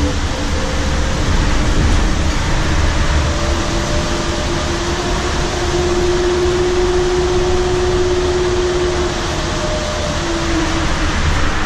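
Cabin sound of a 2016 Nova Bus LFSe battery-electric bus under way: the TM4 LSM280 electric drive motor whines over steady road and tyre rumble. The whine climbs slowly in pitch as the bus gathers speed, then drops near the end.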